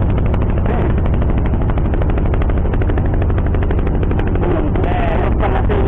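Boat engine running steadily, a loud, fast and even beat of engine strokes with a heavy low rumble.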